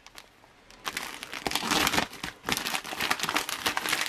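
Glossy plastic MRE meal pouch being torn open and crinkled by hand, starting about a second in.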